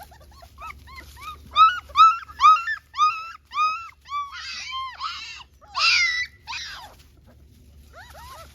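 Young puppies whimpering and yelping: a quick run of short, high, arching cries, several a second, turning into shriller, rougher squeals in the middle before dying away.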